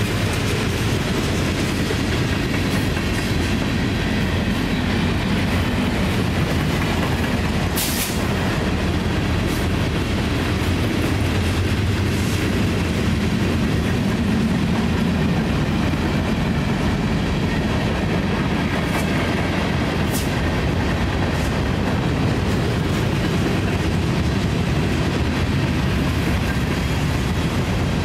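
Union Pacific freight train's cars, mostly covered hoppers, rolling steadily past at close range: a continuous rumble and rattle of steel wheels on rail. A few brief sharp sounds stand out, the loudest about eight seconds in.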